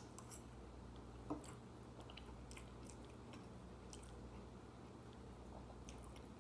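Faint mouth sounds of a person chewing a mouthful of food, with scattered soft wet ticks and one light tap, like a fork on the plate, a little over a second in. A low steady hum runs underneath.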